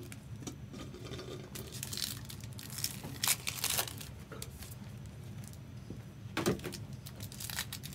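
Foil trading-card pack wrappers crinkling and tearing as packs are opened, in irregular sharp crackles with a few louder rips, over a steady low room hum.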